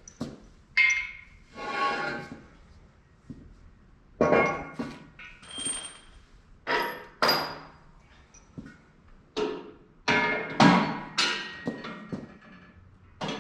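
Steel sawmill parts clanking as they are handled and fitted together during assembly: over a dozen separate knocks, many with a short metallic ring after them.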